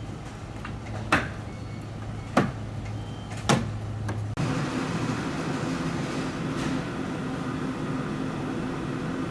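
Randen tram standing at the platform: three sharp knocks a little over a second apart, then from about four seconds in a steady hum from the stopped tram.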